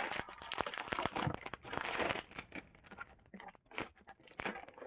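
Keyboard packaging being handled and unwrapped: dense crinkling and rustling for about two seconds, then scattered crinkles and small clicks.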